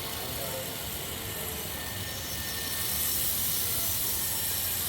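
Aerosol chain-lube spray hissing onto a motorcycle chain, growing stronger about three seconds in.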